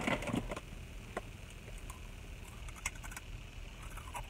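Faint, scattered clicks and small mouth noises of someone eating, over a low steady rumble in a parked car's cabin.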